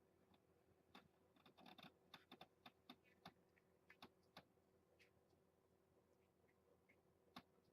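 Faint, irregular clicks and smacks of a young kitten suckling on a feeding-bottle nipple, busiest in the first half and sparser later.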